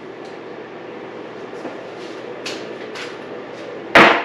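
Workshop tool handling on a dirt bike strip-down: a couple of light clicks, then one loud, sharp metal clank near the end, over a steady background hum.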